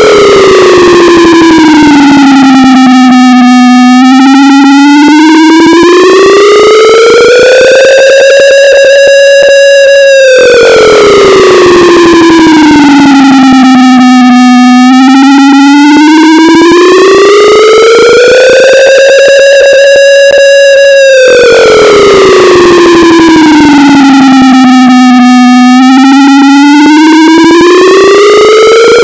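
Deep air raid siren wailing, boosted to the point of distortion. Its tone slides down over about four seconds, climbs back over about four, holds high for a couple of seconds, and the cycle repeats about every eleven seconds.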